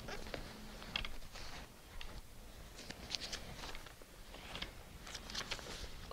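Bible pages being leafed through: faint, crisp paper rustles and flicks in several short clusters.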